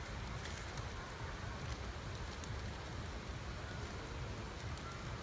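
Small fire of twigs and dry leaves crackling faintly, with scattered light pops over a steady low rumble.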